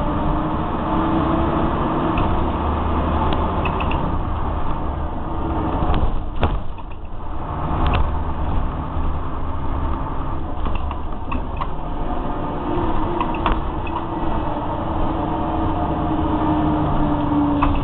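Inside a Scania K93CRB single-deck bus with Wright Endeavour body, heard from the passenger saloon while driving: a steady engine drone with a transmission whine that rises and falls as the bus pulls through its gears. The engine eases off for a couple of seconds around six to eight seconds in, with two sharp knocks, and light rattles and clicks from the body and fittings come and go.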